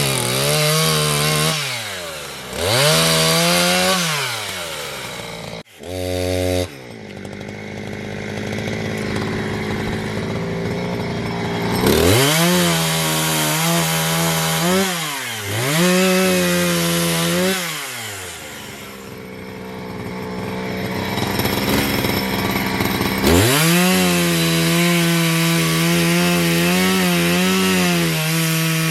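Chainsaw cutting firewood. The engine revs up to full speed and drops back to idle several times, and holds full speed for about five seconds near the end.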